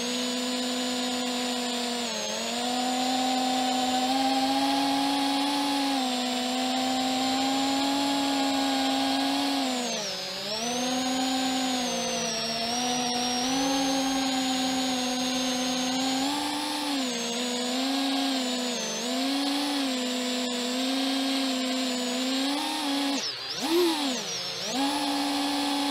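FPV quadcopter's electric motors whining steadily, their pitch dipping and climbing again as the throttle is eased off and pushed, with a sharp drop and surge near the end.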